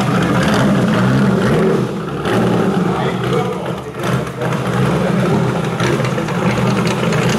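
A Ferrari open sports racing car's engine runs steadily at low revs through its twin exhausts as the car creeps forward.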